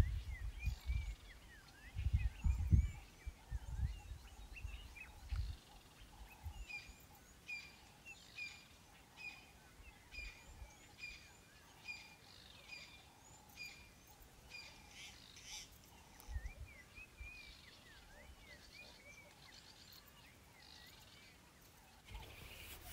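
Wild birds calling, one of them repeating a short call a little more than once a second through the middle stretch, with other chirps around it. A few low rumbling thuds come in the first few seconds.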